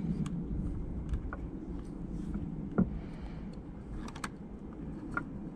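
Scattered light clicks and taps from handling the number plate bulb holder and its wiring, the sharpest about three seconds in, over a steady low background rumble.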